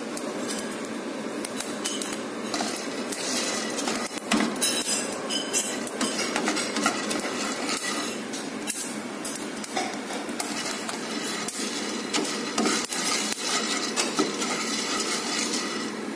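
Coffee beans rattling and scraping as they are stirred with a wooden spatula in a nonstick frying pan, with many scattered sharp cracks like popcorn: first crack, the sign that the beans are roasted through.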